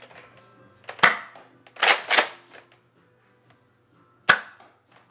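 Nerf blaster firing its last darts: sharp pops spaced out, one about a second in, a close pair near two seconds, and a last sharp crack past four seconds.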